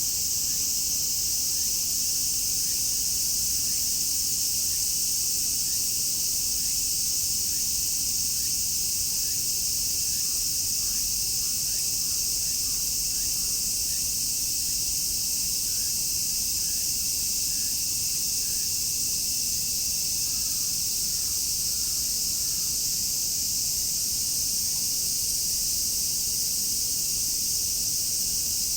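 A dense chorus of cicadas buzzing steadily at a high pitch, with faint short chirps in the middle stretch.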